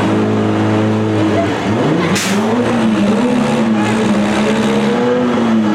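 Demolition derby car engines running hard. One engine holds a steady pitch, then drops off about a second and a half in. A short harsh burst of noise comes about two seconds in, and then engines rev up and down unevenly.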